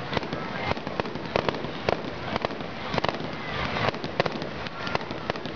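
Aerial fireworks display: a rapid, irregular run of sharp bangs from bursting shells, several a second.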